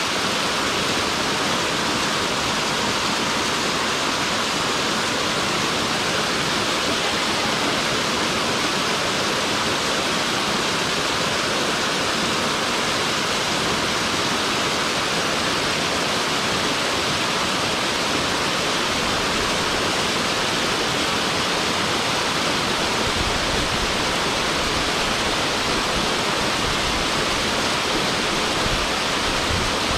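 Small mountain waterfall cascading over rock close to the microphone, a steady, unbroken rush of water. A deeper low rumble joins about three quarters of the way through.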